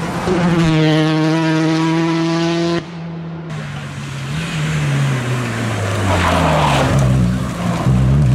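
Rally car engines at high revs. One engine holds a steady high note until a sudden cut almost three seconds in. After it, another engine's note falls as the car slows into a corner and climbs again as it accelerates away, with a burst of tyre and gravel noise just before.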